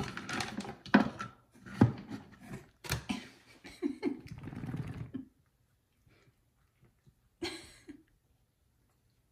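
Dry cat kibble rattling and scraping in a large plastic storage bin as a plastic scoop is worked through it, with sharp knocks of the scoop against the bin. After about five seconds it drops to faint clicks, with one more brief rattle near the end.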